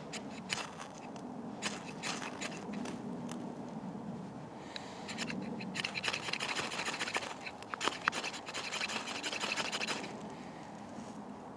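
Knife spine scraping down a ferrocerium fire steel to throw sparks onto a tinder bundle: a few separate scrapes, then from about five seconds in a fast run of strokes that stops about ten seconds in.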